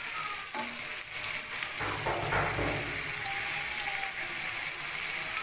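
Chopped onions with garlic, ginger and green chilli paste sizzling in hot oil in a frying pan, being sautéed until the raw garlic smell is gone. A spatula stirs through them, with a louder stir-and-scrape about two seconds in.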